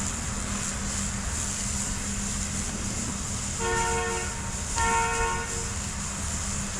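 Train horn sounding two blasts about a second apart, each a chord of several steady tones, over a steady low rumble.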